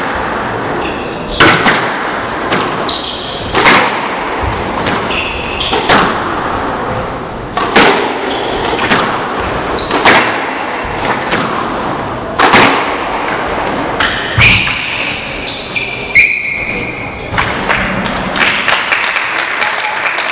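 Squash rally in a reverberant hall: the ball cracks off the rackets and walls every second or two, and rubber-soled shoes squeak briefly on the wooden court floor between shots.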